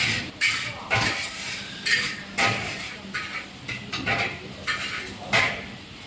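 A metal ladle striking and scraping a wok as noodles are stir-fried over a high gas flame, in quick irregular clangs about once or twice a second, with a steady sizzle underneath.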